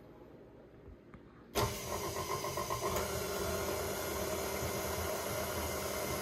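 KitchenAid Artisan stand mixer switched on about a second and a half in, its motor then running steadily as the flat beater beats eggs and sugar in the steel bowl.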